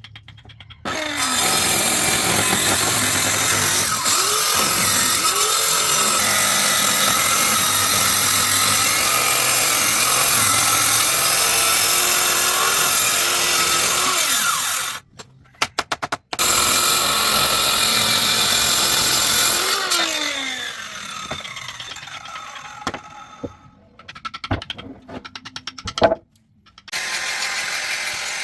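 An electric power tool running and cutting wood, loud and steady, its motor pitch shifting under load. It stops briefly about halfway, runs again, winds down, and starts up once more near the end.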